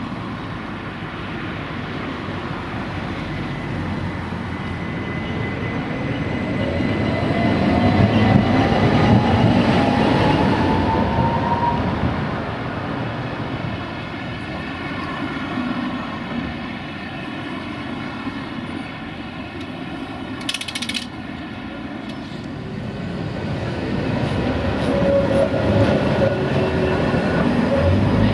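Tatra T4D tram running along street track and passing close, loudest about eight to ten seconds in, its traction motors giving a whine that rises in pitch as it pulls away. Near the end a second tram, a Tatra KT4DM, is heard close by, with a short hiss about twenty seconds in.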